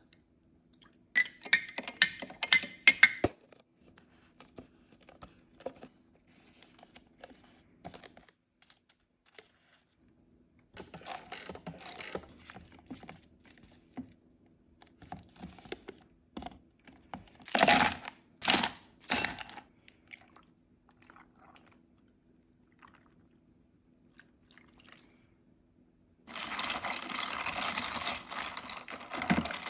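Hand-mixing an iced latte: a metal spoon clicking in a small glass cup, several loud sharp clatters a little past halfway, and near the end a steady rattling swish as a long bar spoon stirs ice in a plastic cup.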